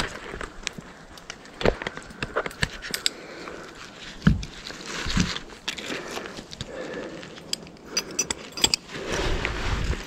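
Tree-climbing spikes and strap gear knocking and clinking against a tree trunk as a climber works his way down: scattered sharp clicks and knocks, with a heavier thump about four seconds in.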